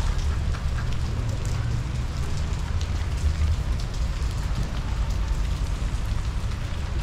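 Rain falling, an even patter with scattered drop ticks, over a steady low rumble.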